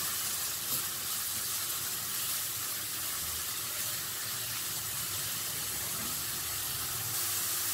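Almond pulp sizzling steadily as it fries in desi ghee in a nonstick wok, stirred with a spatula.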